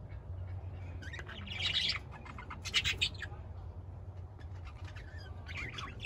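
A flock of budgerigars chirping and chattering in short bursts: about a second in, again around the middle, and near the end. A steady low hum runs underneath.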